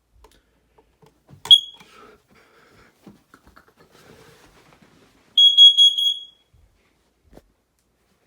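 Family Gard FG888D smoke alarm set off for a test: a single short high beep about a second and a half in, then a loud burst of about four rapid high beeps lasting under a second just past the middle, with faint handling noise between.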